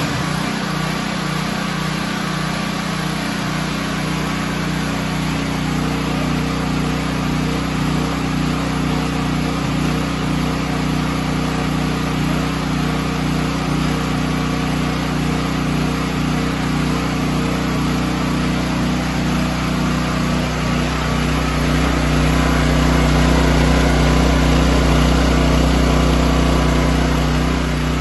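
Portable generator's single-cylinder engine, running on biogas, running steadily under load from a fan and a lamp; it grows somewhat louder toward the end.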